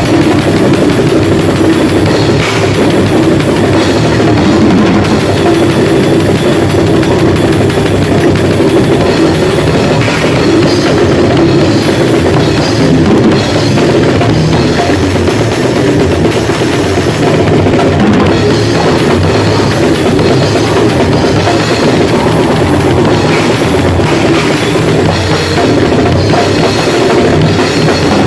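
Grindcore band playing loud at rehearsal: drum kit with bass drum and cymbals under a dense wall of band sound, without a break.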